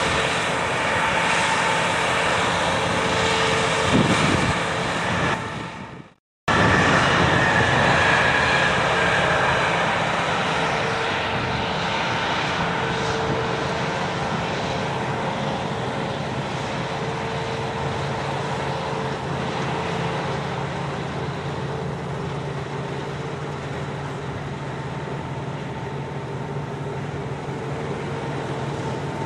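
Claas tracked combine harvester working close by: its diesel engine and threshing gear make a steady drone. The sound drops out for a moment about six seconds in, then a steady engine drone carries on and slowly fades.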